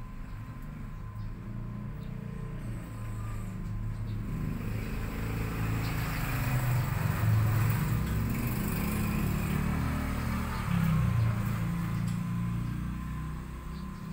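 Low rumble of a passing motor vehicle, swelling to its loudest around the middle and fading again.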